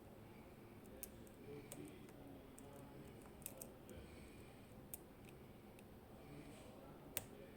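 Faint, scattered metallic clicks of lock picks working the pins of a Medeco M4 high-security lock, with a few sharper single clicks spread seconds apart.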